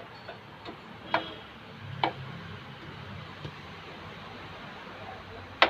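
Metal clicks from the rear drum brake's shoe adjuster being turned to set the new brake shoes: a few short, sharp clicks spread out over a faint steady hiss.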